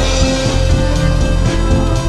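Background music added to the edit: a loud band track with a steady low beat, turning fuller and brighter as a new section begins right at the start.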